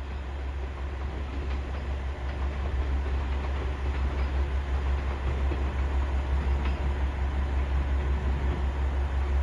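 KiHa 40 and KiHa 47 diesel railcars pulling away under power: a steady low diesel drone that grows louder over the first few seconds as the train accelerates, then holds with a steady pulsing.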